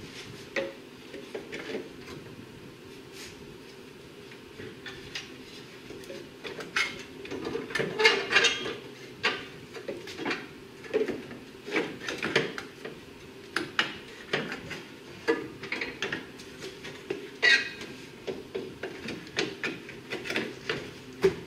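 A plastic radiator support cover being handled and fitted over the radiator of a Toyota Camry: scattered knocks, taps and scrapes of hard plastic against the car's front end, busiest in the middle and again near the end.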